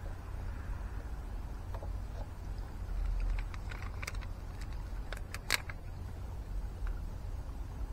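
Scattered small clicks and crackles of a plastic backing sheet of adhesive fastener dots being handled and dots peeled off, with one sharper click about five and a half seconds in, over a steady low rumble.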